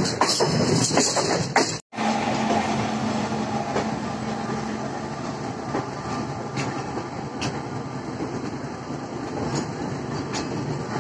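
Passenger train running, heard from aboard: a steady rumble with wheels clicking over rail joints. The clicking is dense at first while another train passes close alongside. The sound cuts out for a moment about two seconds in, after which it is a steadier rumble with occasional pairs of sharp clicks.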